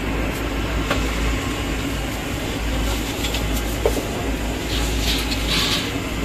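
Sheets of wrapping paper rustling briefly as they are handled on a shop counter, about five seconds in, with a few light clicks, over a steady low rumble.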